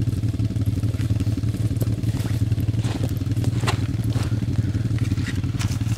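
ATV engine idling steadily, with no revving, and a few light clicks over it.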